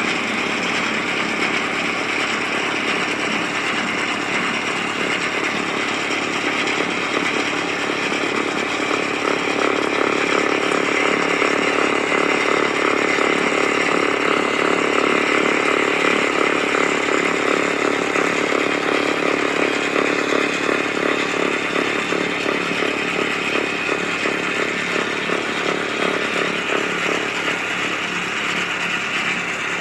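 Kubota LX2610 compact tractor's diesel engine running steadily at working speed, driving a PTO snowblower through a few inches of snow; a little louder around the middle.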